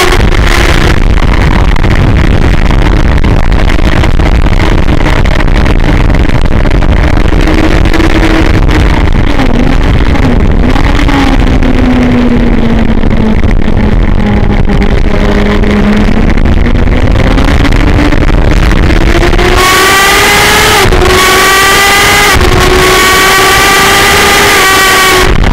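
Sport motorcycle engine heard from an onboard camera on the bike, running at a steady part-throttle note that slowly falls and rises again. About three quarters of the way through it goes to hard acceleration under heavy wind rush on the microphone, the pitch climbing and dropping sharply at three quick upshifts.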